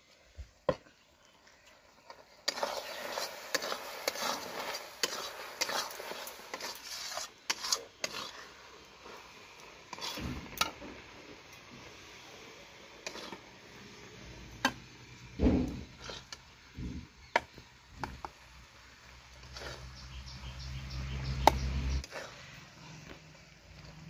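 A metal spoon scraping and clinking against a steel kadai and bowl as thick, sticky pickle is spooned out. There are scattered sharp clinks throughout and a low rumble in the second half.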